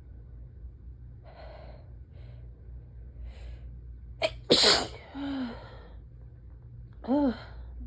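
A person's allergy sneeze: a few catching breaths, then one loud, explosive sneeze about four and a half seconds in, trailing off into a voiced exhale. A short voiced sound follows near the end.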